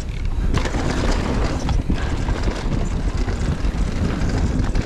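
Mountain bike descending a fast dirt trail: tyres rumbling over the ground with a steady clatter of short knocks and rattles from the bike over bumps, and wind buffeting the microphone.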